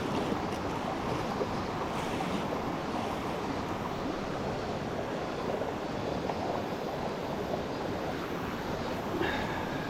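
A steady rushing noise with no break, and a brief high tone near the end.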